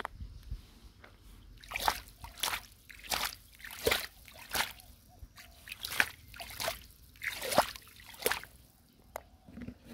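Shallow water sloshing and splashing in a steady run of strokes, about three every two seconds, then stopping near the end.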